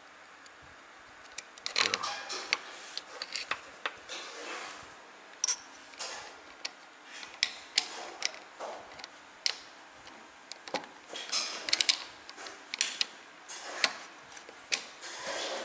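Small metal parts of a Smith & Wesson M29 air revolver's action clicking and scraping against tweezers and the frame as they are fitted by hand: irregular sharp ticks, starting about a second and a half in, with soft handling rustle between them.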